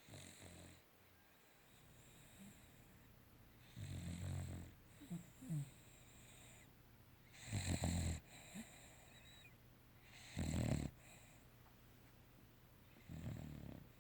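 A sleeping animal snoring: five snores spaced about three seconds apart, with a couple of short squeaky whistles just after the second.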